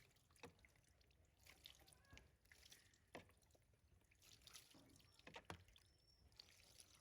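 Near silence, with a few faint scattered clicks and soft rustles.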